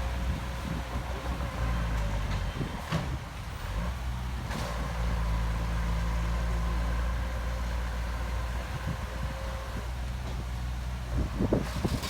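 Diesel engine of heavy earthmoving equipment running steadily, with a couple of sharp knocks and a louder clatter near the end.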